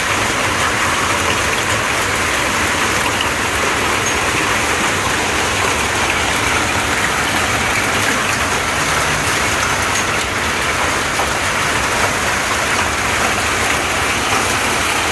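Hailstorm: hail and heavy rain pelting down in a loud, steady, dense patter.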